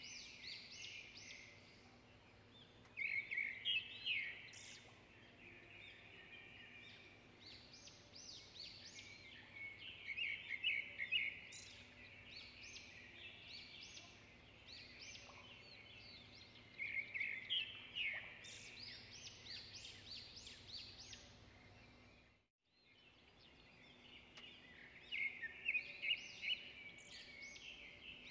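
Small birds singing in repeated bouts of quick, high chirping notes every few seconds, over a faint steady hum. All sound drops out for a moment about two-thirds of the way in.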